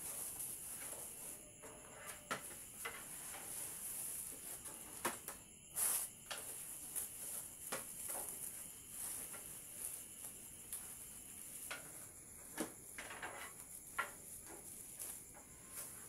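Metal baking trays clinking and scraping against oven racks as they are lifted and shifted to a higher shelf: a scattering of short sharp clicks and knocks, the loudest about six seconds in, over a steady high hiss.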